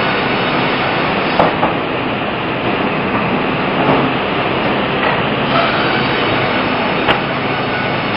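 Large sawmill band headsaw running steadily while cutting an ipe log into boards. There are a few sharp knocks about a second and a half in, around four seconds and about seven seconds in.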